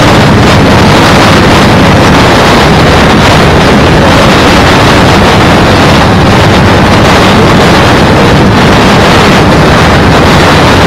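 Loud, steady wind buffeting the action camera's microphone on a moving bike, a dense rushing roar that masks everything else.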